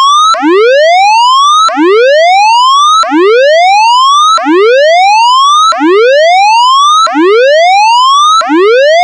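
Tsunami warning siren sounding its alert tone: a loud rising whoop, each one climbing in pitch and then cutting off sharply, repeated seven times. It signals a tsunami warning calling for evacuation.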